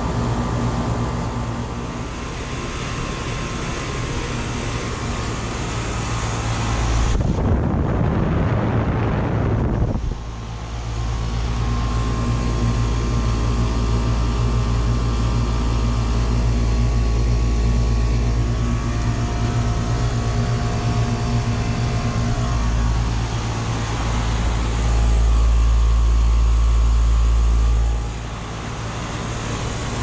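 A 2014 Grand Aire central air conditioner's outdoor condenser unit running, its compressor and fan giving a steady hum. Two stretches of louder low rumbling come over it, about seven seconds in and about twenty-five seconds in.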